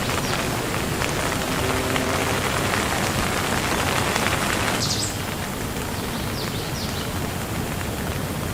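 Steady rain falling, an even hiss of many drops. About five seconds in the sound changes abruptly to a slightly quieter, duller rain.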